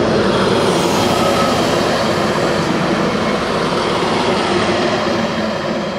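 DB Class 642 diesel railcar passing close by: a steady engine hum over wheel-and-rail rumble, easing off a little near the end as it moves away.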